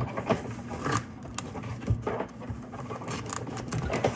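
Cardboard box being handled and pried open: irregular scraping and rubbing of cardboard with scattered sharp clicks and knocks.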